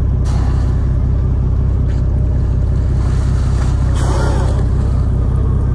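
Boat engine idling steadily with a low hum, as orcas surface alongside. A brief whoosh comes near the start, and about four seconds in an orca's tail fluke splashes at the surface.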